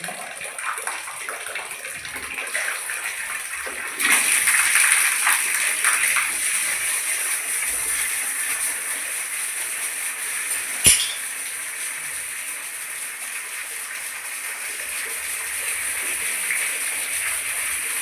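Water running steadily from a bathroom fitting, the flow getting louder about four seconds in. A single sharp click comes a little past the middle.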